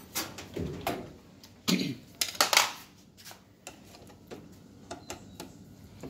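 Hands and a screwdriver working on an LG top-load washing machine's plastic cabinet, loosening the top panel: a few sharp knocks and scrapes in the first three seconds, then lighter scattered clicks.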